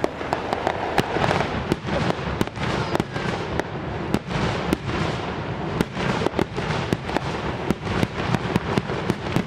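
Fireworks going off: a dense, irregular run of sharp pops and crackles, several a second, over a constant noisy rumble.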